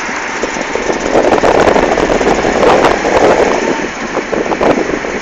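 Tram running along its track, heard from on board: dense, irregular rattling and clatter of the wheels on the rails, loudest from about a second in to about three and a half seconds.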